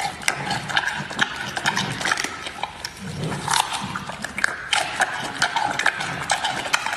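Giant panda biting and chewing a bamboo shoot: continuous crunching with many sharp cracks and wet smacks.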